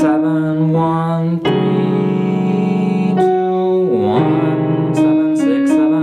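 Piano keyboard playing a slow melody over sustained chords, the tune moving on scale degrees 6, 7, 1, 3, 2, 1 in E major, with a man's voice singing the degree numbers along with it in the second half.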